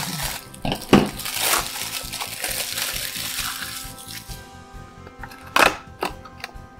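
Small clear plastic packet crinkling and rustling as it is handled and opened by hand, with sharp clicks about a second in and near the end, over quiet background music.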